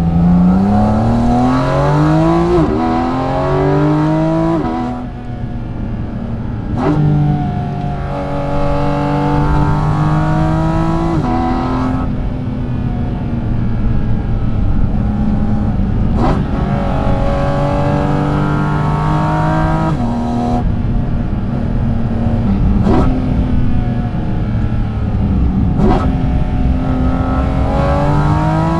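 Porsche GT4 RS's naturally aspirated 4.0-litre flat-six pulling hard through the gears. Its pitch climbs steadily and drops abruptly at each quick upshift, about eight times, each shift marked by a sharp click. Between the pulls there are stretches where it runs at a steady pitch.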